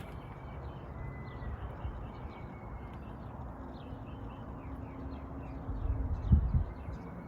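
Small birds chirping in quick, repeated short notes over a steady low background rumble, with a dull low thump about six seconds in.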